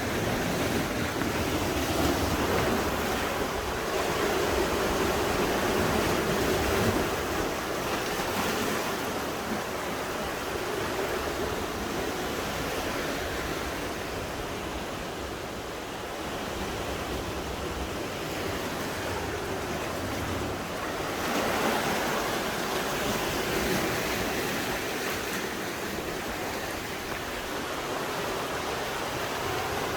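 Sea waves washing on the shore: a steady rush of surf that swells louder a few seconds in and again about two-thirds of the way through.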